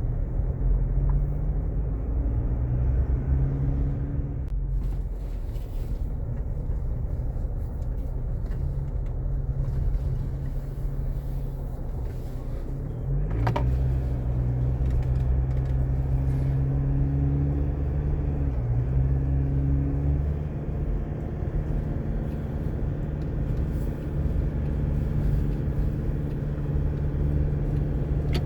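A motor vehicle's engine running steadily, its pitch stepping up and down a few times as the speed changes.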